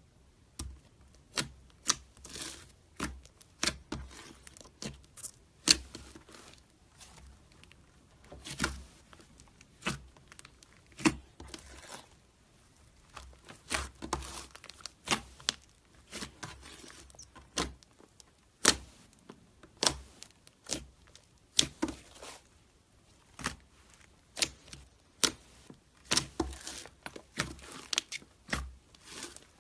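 Slime being squeezed and worked by hand, giving irregular sharp pops and crackles, sometimes several in quick succession.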